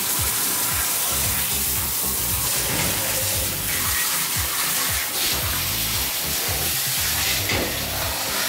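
Handheld shower head spraying high-pressure water onto a dog's wet coat in a stainless steel grooming tub, rinsing out shampoo: a steady hiss of spray, over background music.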